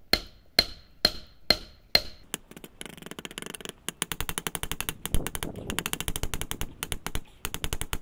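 Hand hammer striking rebar that is being forged flat into a knife blade. About five ringing blows come roughly two a second, then from about three seconds in a rapid, lighter run of taps.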